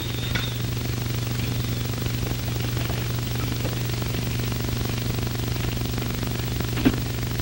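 Steady hum and hiss of an old optical film soundtrack, with a faint knock just after the start and another near the end.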